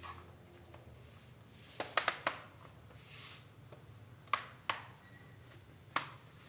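Sharp clicks and taps from hands working on a laptop's plastic case: four in quick succession about two seconds in, then single clicks a little after four seconds, near five seconds and at six seconds.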